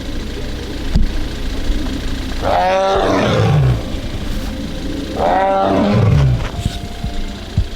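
Amur tiger calling twice. Each call lasts about a second and starts high, then falls steeply in pitch into a low moan.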